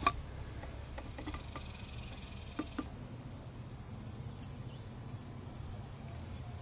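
Faint outdoor background: a steady low rumble and a thin high hiss, with a sharp click at the start and a few light clicks over the next three seconds.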